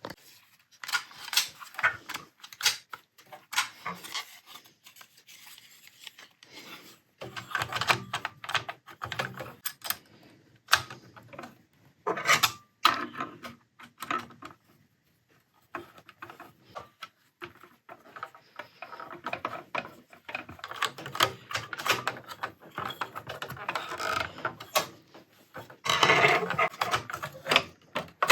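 Parts of a vintage overlocker being handled and fitted back together: irregular clicks, taps and rubbing of plastic and metal pieces.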